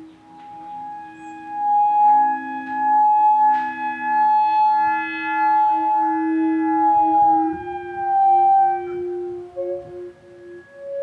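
Theremin music: long held notes, several layered at once, sliding slowly from pitch to pitch.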